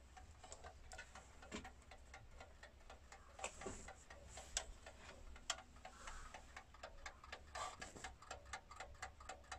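Antique Junghans musical alarm clock ticking faintly and quickly, its freshly reassembled movement running in its case.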